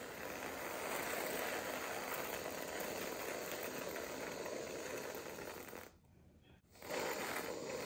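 Aerosol can of whipped cream spraying with a hiss: one long spurt of about six seconds, a short pause, then a second shorter spurt near the end.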